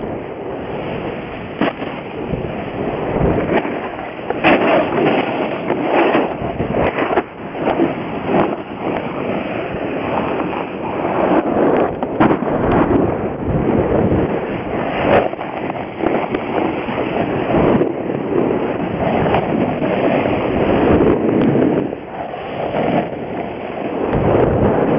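Wind buffeting the microphone: a loud, rough rushing with uneven gusty bumps throughout.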